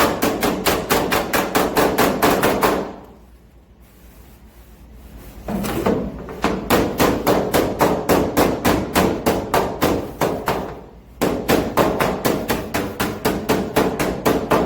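Body hammer tapping out dents in a Ford F-250's steel body panel against a dolly: light, rapid taps at about five a second. They stop for a couple of seconds about three seconds in, and briefly again near eleven seconds.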